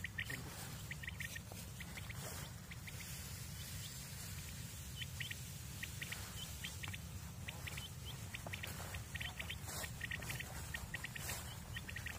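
Quail calling: short, high, clipped notes in quick groups of two or three, repeated every second or so, over a steady low rumble.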